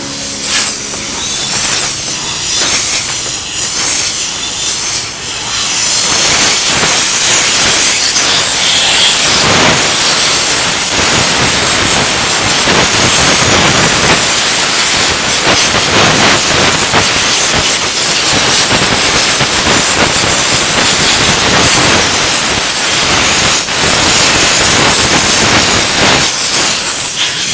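Steam lance of a diesel-fired steam car-wash machine hissing as it jets steam, growing louder and steady about six seconds in.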